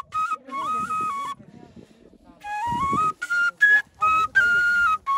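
A side-blown flute playing a melody in short phrases of held notes that step up and down in pitch, with a break of about a second partway through.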